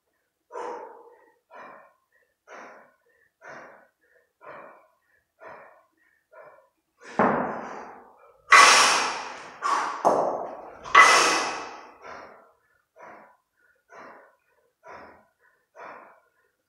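Kettlebell lifter's forceful rhythmic breathing, a short sharp exhale about once a second while he holds two 32 kg kettlebells in the rack. About halfway through come four much louder, harsher exhales and efforts as the bells are jerked overhead and brought back down.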